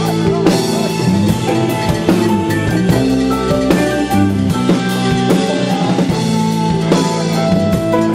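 Rock band playing an instrumental passage: an electronic keyboard plays sustained chords and lines over a drum kit keeping a steady beat.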